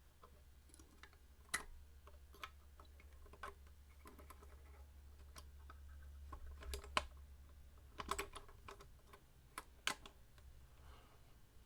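Faint, irregular small metallic clicks and taps, a few sharper ones about a second and a half in, around seven and eight seconds, and near ten seconds: steel tremolo springs being hooked onto the spring claw and block of a Floyd Rose bridge.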